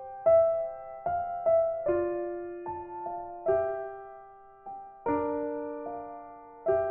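Background music: a slow, gentle piano melody, single notes and chords struck every second or so and left to ring and fade.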